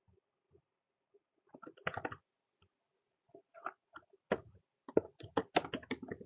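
Computer keyboard being typed on, with some clicks, in short runs of quick keystrokes. The busiest run comes near the end.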